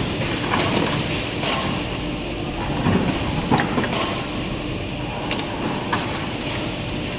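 Automatic CNC production line for aluminium window frames running: a steady machine hum with scattered clanks and knocks.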